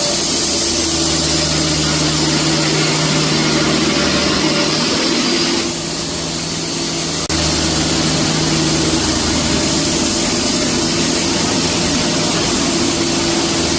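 Band sawmill running: a steady machine drone with a loud hiss over it. The sound changes briefly about six seconds in and snaps back with a click about seven seconds in.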